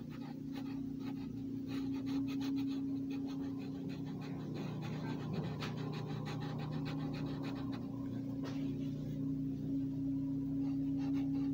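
Red Sharpie marker tip scratching on paper in a quick run of short strokes, colouring in a pattern, over a steady low hum.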